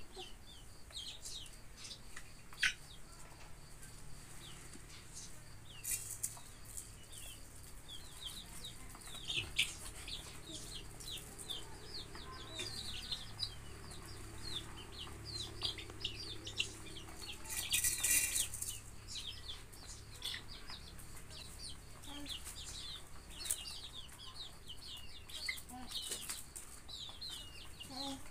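Chickens with chicks: rapid short high peeps from the chicks, with clucking, and one louder, harsher call about two-thirds of the way through.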